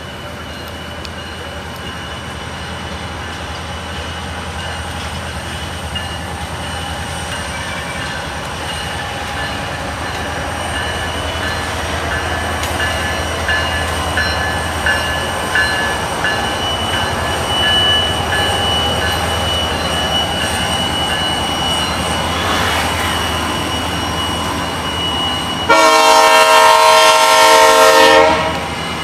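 Diesel freight locomotives passing, their engines rumbling steadily and growing louder as they approach, then a long locomotive horn blast lasting about two seconds near the end.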